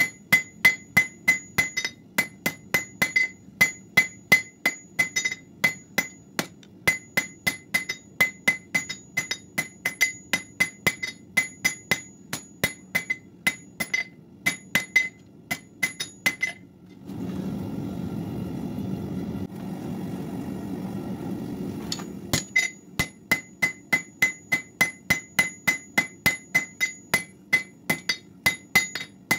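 Hand hammer striking a red-hot steel bar on an anvil at about three blows a second, the anvil ringing with each blow. The blows pause for about five seconds partway through, filled by a steady rushing noise, then resume at the same pace.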